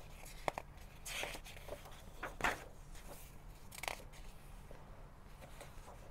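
Pages of a large paper book being turned and handled: three short rustling swishes of paper, with two light clicks about half a second in.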